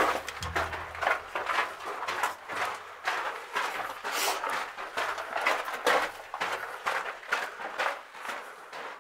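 Footsteps on the loose gravel and dirt floor of a mine tunnel, at a walking pace of about two to three steps a second.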